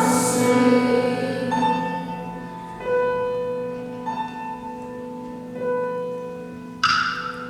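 Instrumental interlude of the song's accompaniment: sustained piano-like keyboard chords, with a new note or chord entering every second or so. The choir's singing breaks off right at the start, and near the end a sharp, bright percussive hit cuts in.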